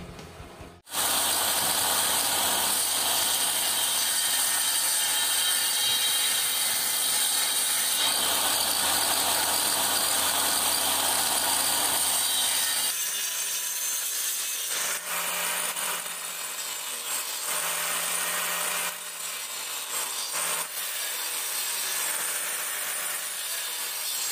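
Electric saw mounted in a homemade wooden saw bench, running and cutting strips of wood. The steady, loud noise starts suddenly about a second in and changes character about halfway through as the cut and the load change.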